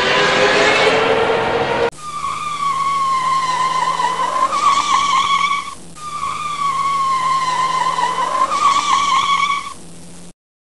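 Honda Pioneer 500 side-by-side driving on snow. Its engine rises in pitch for the first couple of seconds. After a sudden cut, a high drivetrain whine sags slightly and then holds, twice over. The sound cuts off abruptly near the end.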